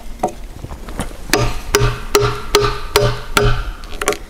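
A hanok chisel driven into a softwood beam by mallet blows to chop out a mortise: a few light taps, then about six sharp wooden knocks in a steady rhythm from just over a second in, each with a short, low ring.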